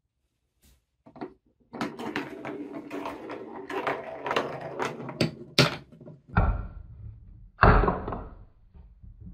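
A ball rolling along a wooden TrixTrack marble-run track, a continuous rumble with clicks at the joins lasting about four seconds. Then two loud wooden thuds about a second apart near the end, as the ball drops and lands on the wooden pieces.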